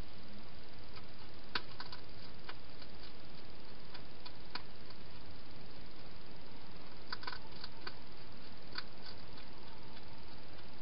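Wild hedgehog feeding at a bowl inside a plastic feeding box: scattered small clicks from its eating, in two or three loose clusters, over a steady hiss.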